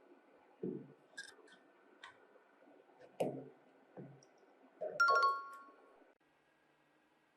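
Small metal parts and tools being handled on a work surface: a few dull knocks and clicks, then a ringing metal clink about five seconds in. The sound drops away to a faint hiss soon after.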